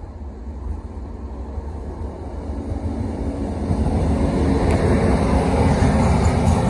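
Indian Railways electric locomotive hauling an express passenger train, approaching and passing close by: a rumble of wheels on the rails that builds steadily and is loudest in the last few seconds, as the locomotive goes past.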